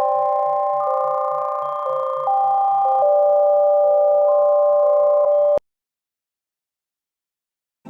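Synthetic, neural-net-generated electronic tones: several steady pitched notes held together and shifting in chord-like steps, over a low pulse about four times a second. They cut off suddenly about five and a half seconds in, leaving dead silence.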